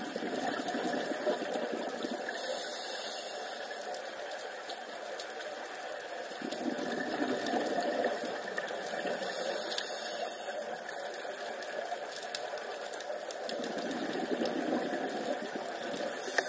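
Scuba diver breathing through a regulator, heard underwater: a short high hiss of inhaling and a longer muffled bubbling swell of exhaling, repeating about every seven seconds.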